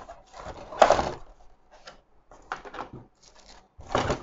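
Cardboard packaging being handled: a moulded insert tray sliding against and lifting out of a white cardboard box, in a few short scrapes and rubs, the loudest about a second in.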